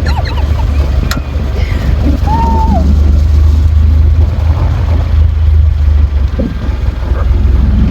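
A vehicle running with a steady low rumble, and a brief high tone about two and a half seconds in.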